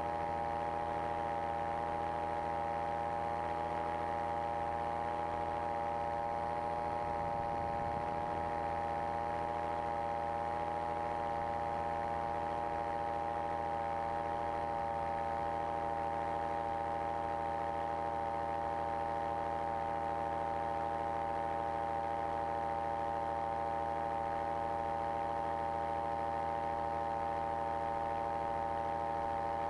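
Flylight Dragonfly microlight trike's engine running steadily in flight, holding one even pitch.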